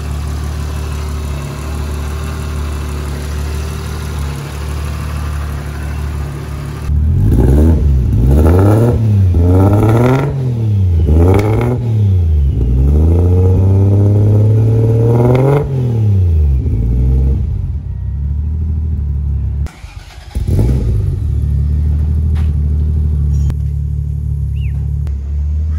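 Toyota Cressida's swapped-in 1JZ straight-six idling through its exhaust, then revved in a series of quick blips and once held high for about two seconds before dropping back to idle. The sound cuts out for a moment near the end, then the idle returns. The engine is running on its newly fitted Link ECU and wiring loom.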